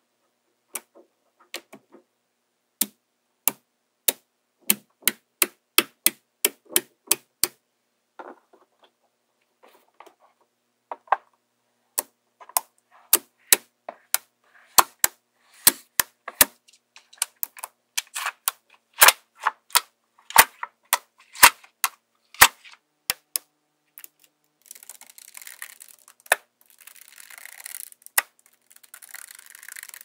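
Small magnetic balls clicking as they snap onto a magnetic-ball model: sharp single clicks at uneven intervals, some loud. In the last several seconds a steady rattling hiss of many balls shifting together takes over.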